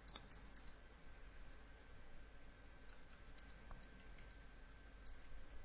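Near silence: room tone with a few faint, scattered computer mouse clicks.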